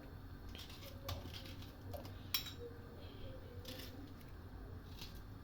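Kitchen knife cutting a whole lemon, peel on, into pieces: scattered soft cuts and light taps, the sharpest tap about two and a half seconds in.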